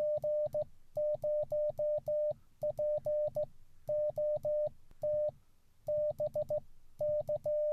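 Morse code: a single steady beep keyed in dots and dashes, spelling out the callsign G0POT and then a few more characters.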